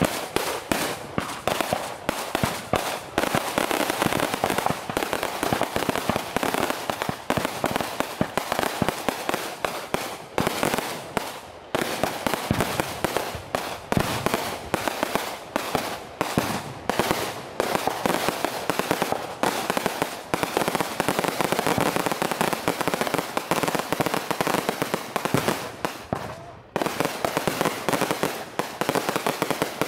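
Long strings of firecrackers hanging beneath a hot-air balloon going off in a rapid, continuous crackle of bangs, with a brief lull near the end.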